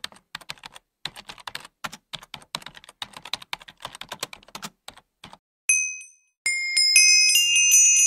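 Rapid, irregular keyboard typing clicks that stop about five seconds in. Then a short, high ding, and from about six and a half seconds a cascade of bright, overlapping chime notes that ring on and slowly fade.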